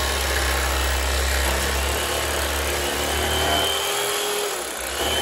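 Electric carving knife running steadily, its serrated blades sawing through a roasted pork joint. Its low motor hum weakens about four seconds in.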